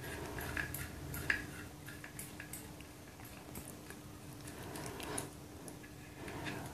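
Screwdriver turning the adjuster screw out of the back of a sealed motorcycle horn: faint, scattered small clicks and scrapes.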